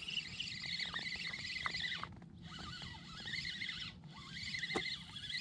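Fishing reel being cranked against a hooked fish, a high squeaky whirring in three spurts with short breaks about two and four seconds in.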